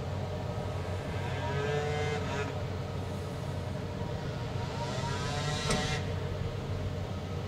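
A steady low hum of the hall's background, with brief faint gliding tones twice in the middle and one sharp click near the end.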